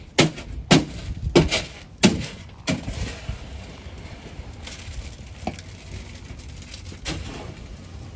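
A run of sharp knocks, about six in the first three seconds, then three fainter ones spaced a second or two apart, over a low steady rumble.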